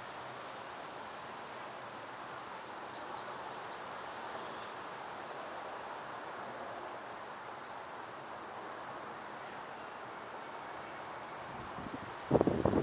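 Crickets trilling steadily in a high, thin, unbroken tone over a soft, even outdoor rush, with a few faint quick high chirps. Near the end a sudden cluster of loud, rough sounds cuts in.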